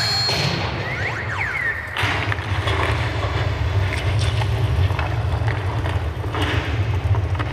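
Light-show soundtrack over loudspeakers: a deep, continuous rumble, with a cluster of swooping whistle-like glides about a second in and a few sharp knocks.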